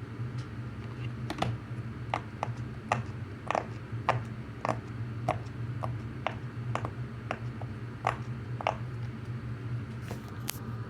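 Yellow silicone pop-it fidget toy having its bubbles pressed one after another: a string of short, quiet pops, roughly one every half second to second, over a steady low hum.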